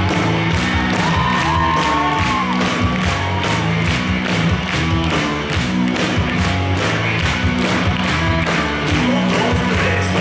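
Dance music with a steady fast beat and a repeating bass line.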